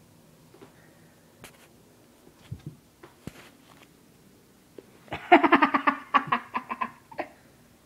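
A person laughing in a rapid run of giggles for about two seconds, starting about five seconds in, after a few soft taps and rustles of handling.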